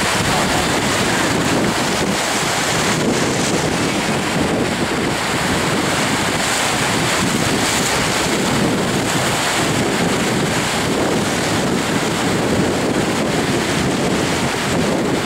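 Ocean surf washing and breaking in the shallows, a steady rushing noise, with wind buffeting the microphone.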